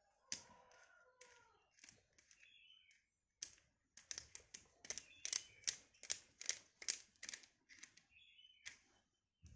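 Faint small clicks from a Shimano XTR M970 trigger shifter being turned and worked by hand during disassembly. They come sparsely at first, then about two or three a second through the second half.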